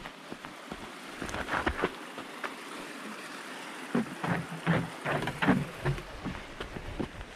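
A runner's footsteps striking a woodland trail, about three steps a second in two runs, over a steady rain-like hiss that swells about a second in and fades near the end.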